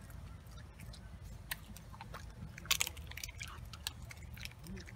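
A dog crunching dry kibble: irregular sharp crunches and clicks, the loudest a little under three seconds in, over a steady low rumble.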